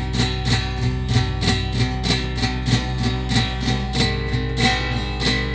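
Instrumental passage of a song: a guitar strummed in a quick, even rhythm over sustained chords and a steady low bass.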